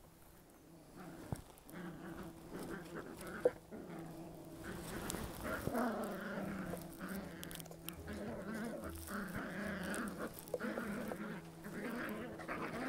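Young puppies, a few weeks old, vocalising in a run of short, wavering calls that start about a second in and grow busier from about five seconds in. A single sharp click comes about three and a half seconds in.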